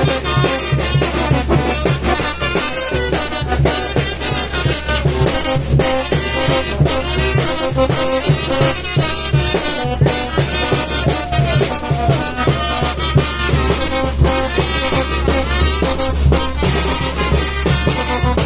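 A Mexican banda, a brass band, playing continuously: trumpets and trombones carry the tune over a steady, driving drum beat.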